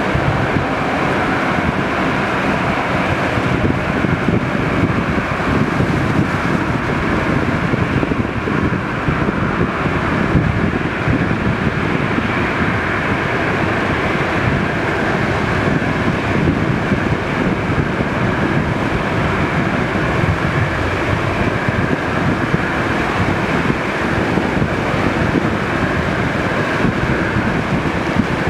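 Steady rumble of a taxiing airliner's engines, with wind buffeting the microphone.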